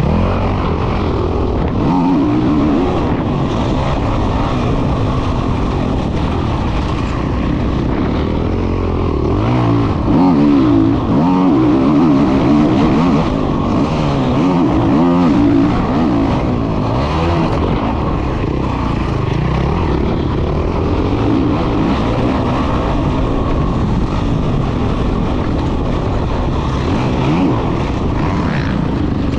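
Honda CRF450 motocross bike's single-cylinder four-stroke engine running hard on track laps, heard close up from the rider's helmet. Its pitch keeps rising and falling as the throttle is opened and closed, most busily about ten to fifteen seconds in.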